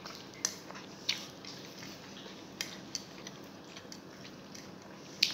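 Eating by hand at close range: fingers mixing rice and adobo on a plate, with a few scattered sharp clicks and chewing sounds, the loudest click near the end.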